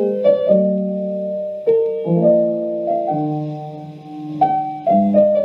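Slow piano music: chords and melody notes struck and left to ring.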